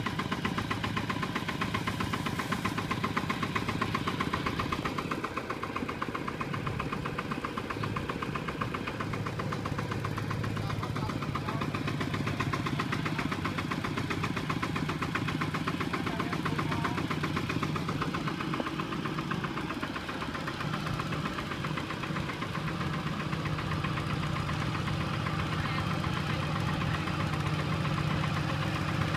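Single-cylinder diesel engine of a Kubota two-wheel walking tractor running steadily, with a fast, even knocking beat.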